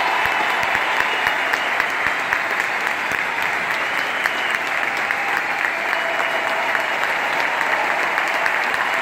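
Large arena audience applauding, a steady dense clapping.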